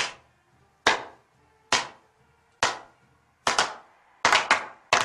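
Slow hand clapping, single sharp claps a little under a second apart, picking up pace with doubled claps in the last second and a half as it builds.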